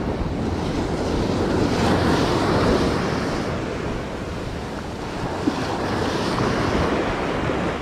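Ocean surf breaking and washing up a sand beach: a steady rush of water that swells twice, about two seconds in and again about six seconds in.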